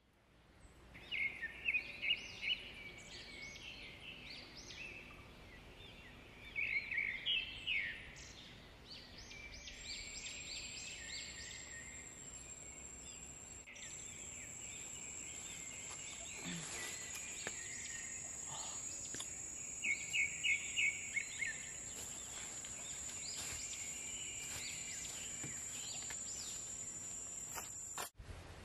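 Forest ambience: birds calling in three bouts of quick repeated notes, with scattered chirps in between. A steady high-pitched whine comes in about ten seconds in.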